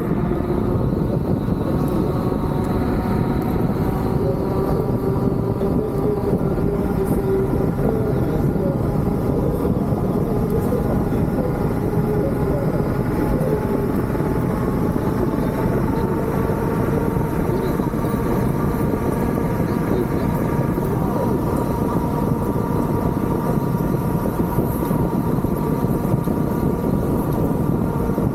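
Hurricane wind blowing steadily and hard, a constant heavy rush with faint wavering whistles on top.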